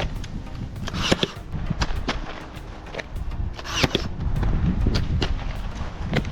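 Artificial turf being stapled down: a run of sharp knocks, with louder hissing cracks about one second in and again near four seconds.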